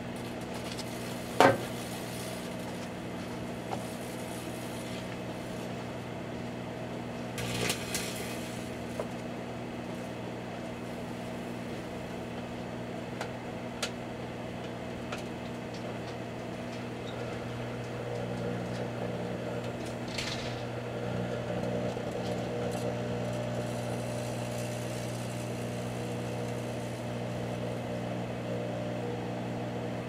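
Microwave oven running with a steady hum while a plugged-in clock radio fries inside it. There is a sharp snap about a second and a half in, short bursts of crackling around eight and twenty seconds in, and scattered faint clicks as the radio breaks down under the microwaves.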